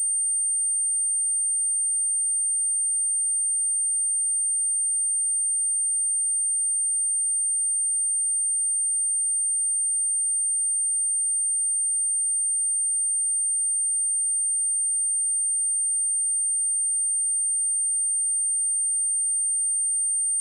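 A single pure test tone at 8797 Hz, a steady high-pitched sine wave held unbroken at constant level, played as a speaker test and speaker-cleaning tone.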